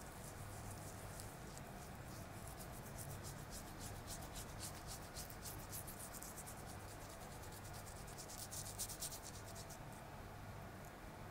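Quick, repeated rubbing strokes on a client's face, several a second, stopping shortly before the end, over a low steady hum.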